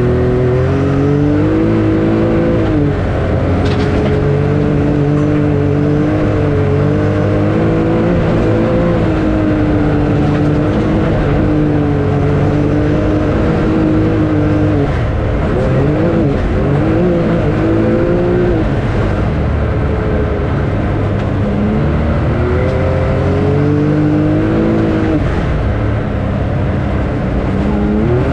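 A vehicle engine running while driving, its pitch rising and falling smoothly as engine speed changes, with dips and climbs a little past halfway and near the end.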